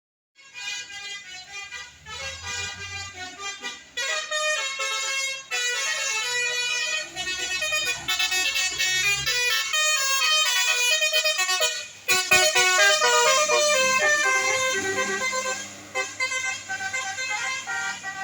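Bus telolet horn, a set of musical air horns, playing a rapid multi-note tune with pitches stepping up and down. It starts suddenly and breaks off briefly about twelve seconds in before playing on.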